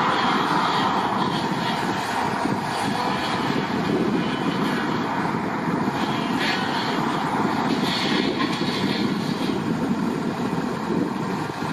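Helicopter engine running in a steady drone with a constant whine.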